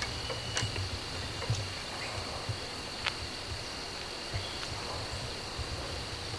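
Crickets trilling in a steady high-pitched drone, over a low uneven rumble on the microphone and a few faint clicks.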